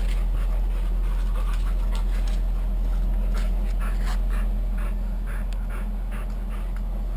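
Wood-fired rocket heater burning hard: a steady low rumble from the fire and its draft, with irregular small crackles and pops scattered through.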